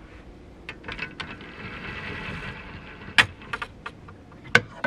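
Wire clothes hangers clicking against a hanging rail and a shirt's fabric rustling as it is hung up, with several sharp clicks, the loudest about three seconds in and again near the end.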